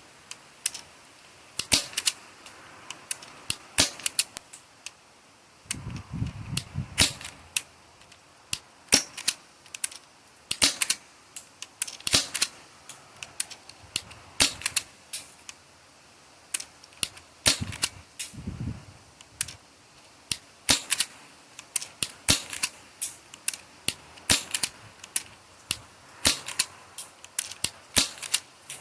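Novritch SSX23 airsoft pistol firing shot after shot: dozens of sharp, snappy pops, spaced irregularly about half a second to a second apart.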